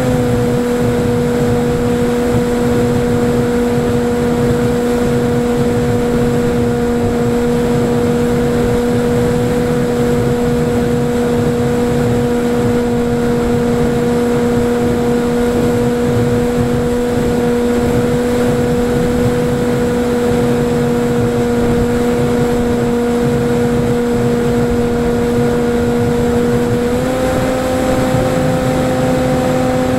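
Electric motor and propeller of a Falcon Evo FPV flying wing at steady cruise throttle, heard through the onboard camera's microphone as one held, droning whine over wind rush. Near the end the pitch steps up slightly as the throttle is nudged higher.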